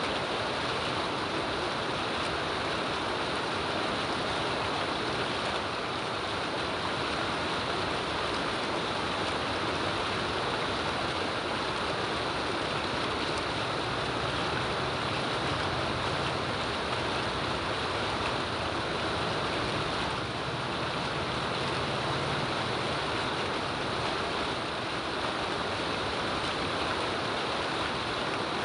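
Steady rain falling, an even unbroken hiss with no let-up.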